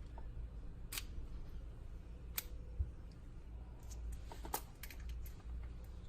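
A few light, sharp clicks and taps over a low steady hum: single clicks about a second in and again a little later, and a quick cluster of three or four clicks just past the middle.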